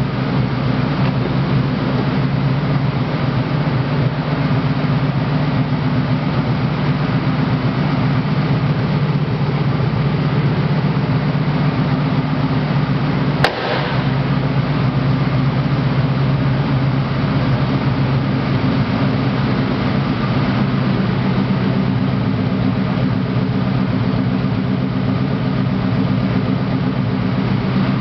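1979 Pontiac Trans Am's V8 idling steadily, with an even, unchanging engine note. A single sharp click about halfway through.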